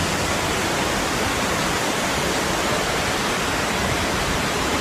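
A waterfall close by, heard from the rock overhang behind it: a loud, steady rush of falling water with no breaks.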